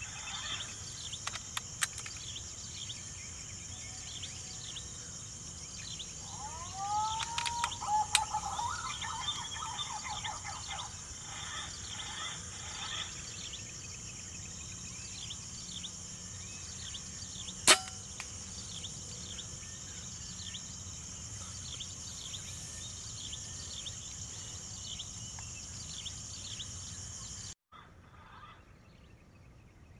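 Steady high-pitched insect drone with scattered small bird chirps; about a quarter of the way in, a couple of rising whistled bird calls, and a little past the middle a single sharp crack of an air rifle shot, the loudest sound. Near the end the background drops away abruptly.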